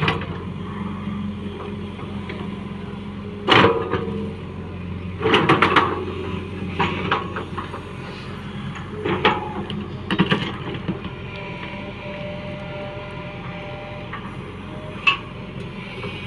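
JCB 3DX backhoe loader's diesel engine running steadily, with a series of sharp knocks and clatters as the machine works, the loudest about three and a half seconds in.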